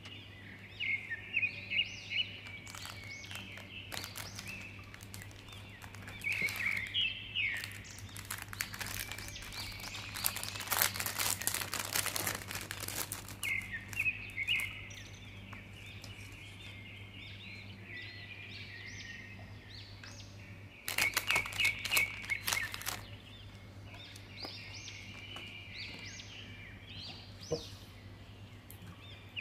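Small birds chirping and twittering almost without pause over a steady low hum. Paper and plastic packets crinkle as they are handled, in a long spell in the middle and a shorter one about two-thirds through.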